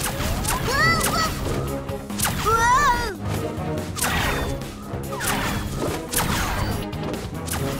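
Cartoon ray-gun sound effects: a shrinking blaster firing zapping shots, with whooshes and sharp impacts, over action background music.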